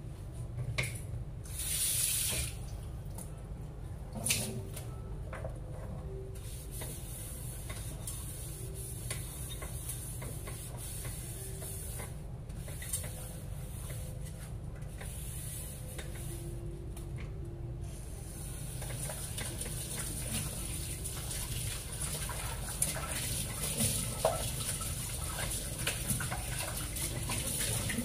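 Kitchen tap running into a sink while non-stick frying pans are rinsed under it, with a brief louder hiss about two seconds in and a few light knocks of the pans. The water hiss gets stronger in the second half.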